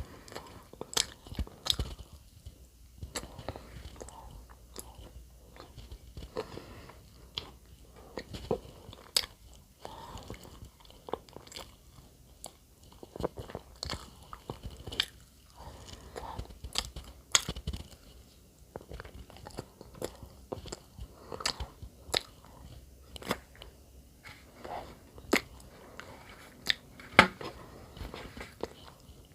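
Close-up eating sounds: a person chewing and biting into soft bread, with irregular small wet clicks and mouth noises.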